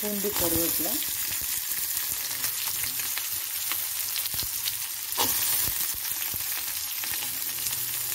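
Chopped shallots, garlic and curry leaves sizzling in hot oil in a kadai, with a steel spoon clicking and scraping against the pan as they are stirred.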